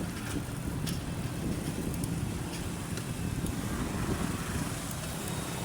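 Steady low road rumble heard while riding a bicycle, with a few faint clicks.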